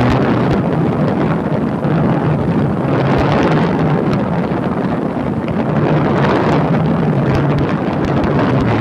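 Motorcycle engine running at a steady cruise with a constant low hum, under heavy wind buffeting the microphone.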